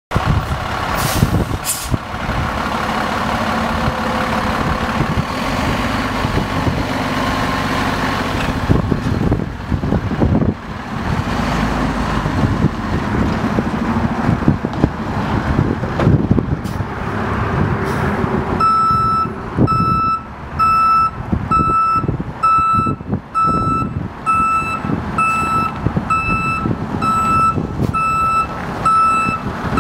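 A 2009 Freightliner M2 106 flatbed truck's diesel engine running as the truck drives and pulls around, its pitch rising and falling in the first several seconds. About two-thirds of the way through, the truck's backup alarm starts beeping steadily, about three beeps every two seconds, as it reverses.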